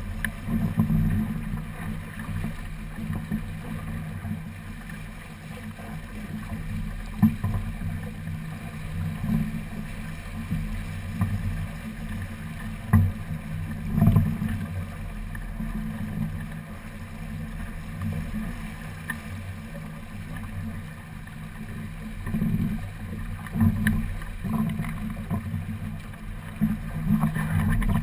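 Wind rumbling on the microphone of an onboard camera on a small racing keelboat under sail, with water rushing along the hull. A few sharp knocks stand out, around a third and halfway through.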